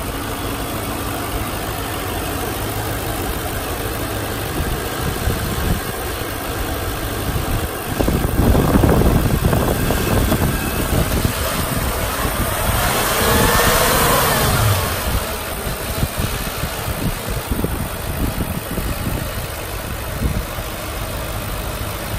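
2008 Audi S4's 4.2-litre V8 idling, then revved: the engine note gets louder about eight seconds in and climbs to a peak around fourteen seconds before falling back to a steady idle.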